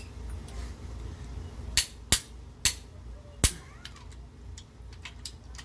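Click-type torque wrench clicking as it breaks over on the cylinder head bolts of a 1.5JZ engine: four sharp clicks within about two seconds, with fainter ticks around them.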